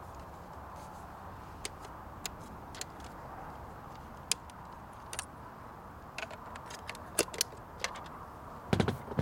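Sharp plastic clicks and snaps from handling an RC transmitter and a utility knife, irregular and scattered over a steady low hiss, with a louder clatter of knocks near the end.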